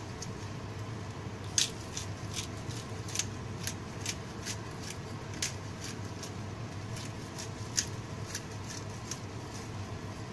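Mushroom and onion gravy simmering in a frying pan on a gas burner, with small irregular pops and ticks over a steady low hum.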